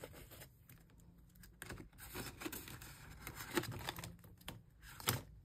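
Paper banknotes and envelopes rustling and crinkling as cash is counted and slid into binder envelopes, with a few soft scattered clicks.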